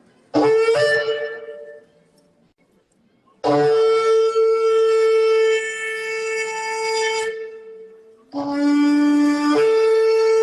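Shofar being blown in three blasts: a short blast near the start, then a long held blast of about four seconds, then a blast that starts on a low note and breaks up to the higher note partway through.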